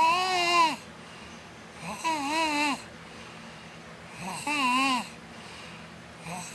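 A young girl's snoring in her sleep: on each breath a pitched, wavering whine lasting under a second, heard three times about two seconds apart, with a fourth starting at the very end.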